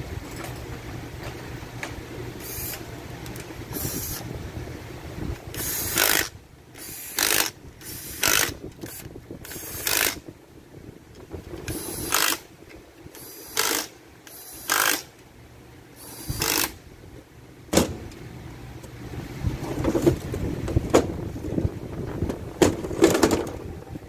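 Red cordless power driver running bolts into a Ford DPS6 dual-clutch transmission case, in about ten short bursts of under a second each between about six and seventeen seconds in. Near the end, metal clunks and scraping as the transmission parts are handled.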